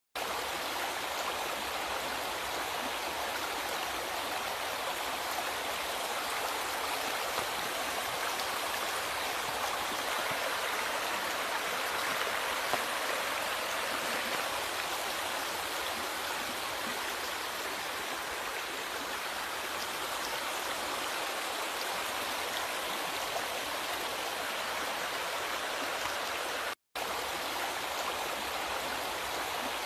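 Flowing river water, a steady rushing and babbling that cuts out completely for a split second near the end.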